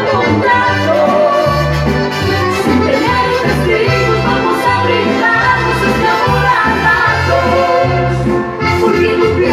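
Live band playing an instrumental break in a Colombian música popular song, with a steady bass line and drums under a lead melody.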